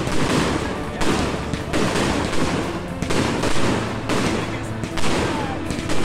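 Three 100-shot salute cakes firing together: a rapid, irregular string of sharp bangs from the salute shells bursting overhead.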